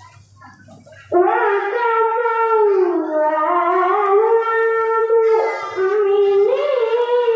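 A boy reciting the Quran in melodic tilawah style into a microphone, starting about a second in: long held notes that bend and slide slowly up and down in pitch.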